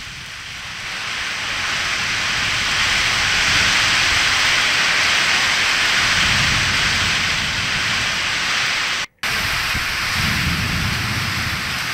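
Heavy storm rain pouring down in a steady hiss, with gusts of wind rumbling on the microphone twice; the sound cuts out for a moment about nine seconds in.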